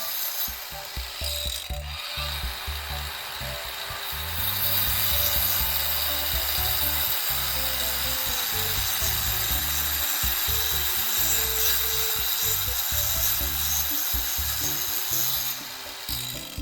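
Angle grinder rigged as a homemade handheld saw, cutting wood: a steady, high cutting noise that grows louder about four seconds in and stops shortly before the end.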